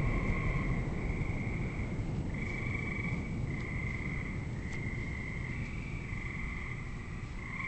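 A chorus of frogs calling in long, even trills, each a second or so long, with short gaps between them. Underneath is a low rumble that slowly fades.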